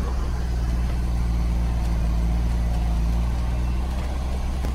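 Logging truck's diesel engine running steadily as a low, even drone, heard from inside the cab as the loaded truck crawls down a steep grade.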